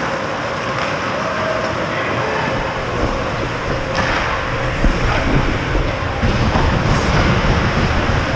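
Ice hockey rink game sound: a steady rumbling noise of skating with a few sharp clicks, growing heavier from about five seconds in as players come in toward the net.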